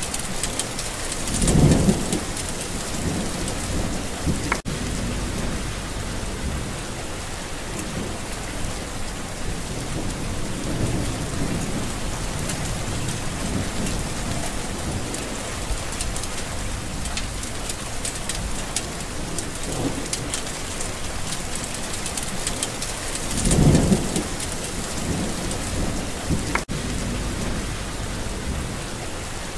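Steady rainstorm with rain pattering on surfaces. Short low rumbles of thunder come about two seconds in and again about three-quarters of the way through, with softer rumbles between.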